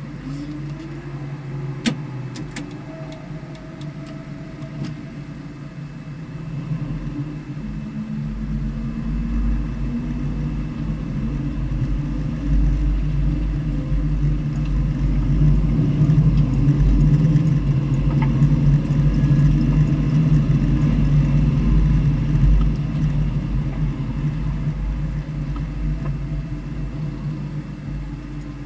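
A vehicle engine running at speed on a race circuit, a steady low drone with rushing noise. It grows louder from about a fifth of the way in, is loudest past the middle, then eases off toward the end.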